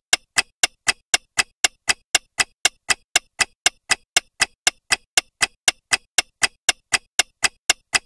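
Countdown ticking sound effect: an even, clock-like tick about four times a second.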